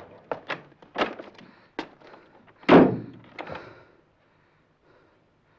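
A run of sharp, uneven knocks, then one loud heavy thud about two and a half seconds in that rings briefly, and a last lighter knock before the sounds stop.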